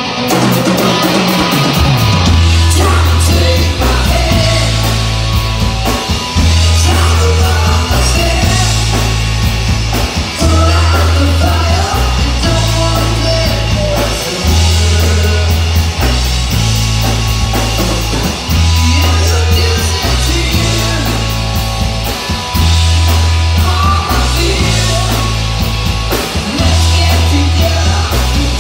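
Live rock band playing loudly through a PA: two male voices singing over electric guitar, bass and drums. The bass slides down about two seconds in, then settles into a low riff that repeats about every two seconds.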